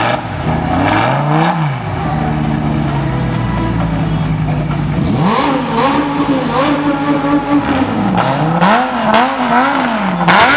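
Lamborghini Gallardo Spyder's V10 engine being revved: a short rev that falls back to idle, then a longer rev held for a couple of seconds around the middle, then a string of quick throttle blips near the end. Loud.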